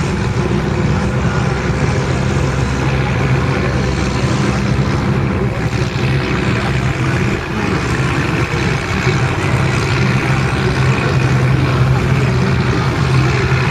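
Motor fishing boats' engines running, a steady low drone as the boats cruise past close by.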